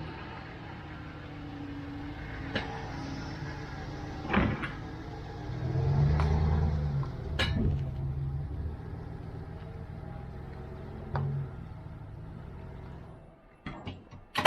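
Motor vehicle engine running steadily, louder for a few seconds around the middle, with several sharp knocks and clunks over it.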